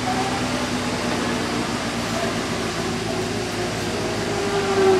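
Steady mechanical whir with a low hum, like a fan or blower running, growing slightly louder near the end.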